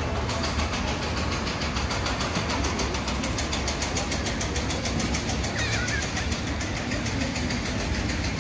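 A motor or engine running steadily: a deep hum with a fast, even pulse.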